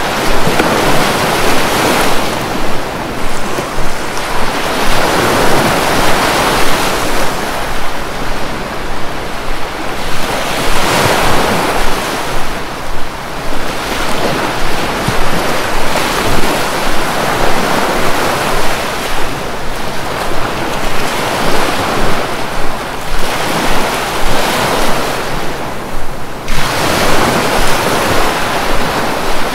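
Sea waves breaking and washing up on a beach, a rushing surf that swells every few seconds as each wave comes in.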